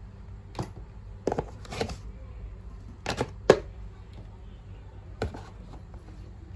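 A handful of short light knocks and clicks at irregular intervals, the loudest near the middle, from objects being handled on a hard surface, over a low steady hum.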